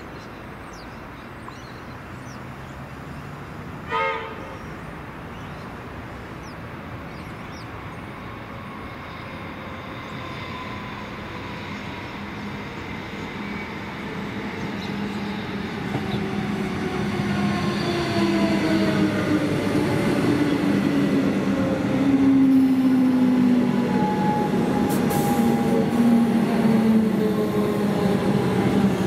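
Comeng electric multiple unit train giving one short horn toot about four seconds in, then running into the platform, growing louder. Its motor whine falls steadily in pitch as it brakes and slows.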